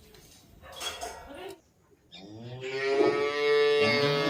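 A cow mooing: one long, drawn-out moo that starts about two seconds in, right after a moment of dead silence.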